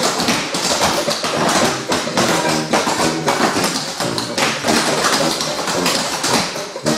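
Clogging taps on two dancers' shoes striking a hard floor in a fast, dense rhythm of clicks, over recorded backing music.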